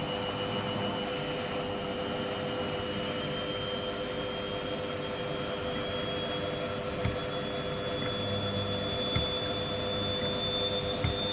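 Hoover washing machine's motor whining as the drum speeds up in the final spin toward 1400 rpm: a high whine slowly rising in pitch over a steady hum. A few faint knocks come near the end.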